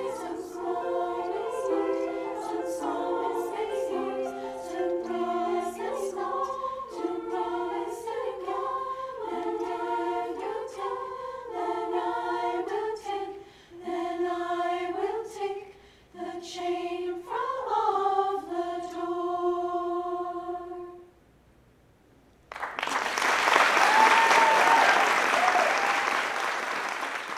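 Women's choir singing the closing phrases of a song in several parts, the notes ending on a held chord about 21 seconds in. After a moment of silence the audience breaks into loud applause with some cheers.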